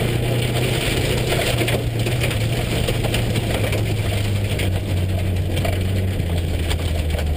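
Subaru rally car's engine running steadily at moderate speed, under a constant crunching and crackling of gravel and tire noise. The car is being driven on a flat right-front tire.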